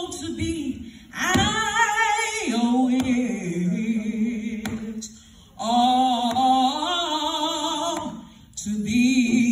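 A woman sings a slow gospel song solo into a microphone. She holds long notes with a wide vibrato in three phrases, with short breaks between them.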